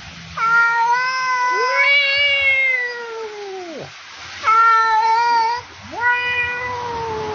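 Long drawn-out meows, the first overlapped by a second meowing voice, each one sliding down in pitch as it ends. One call follows another, with a last one still going at the end.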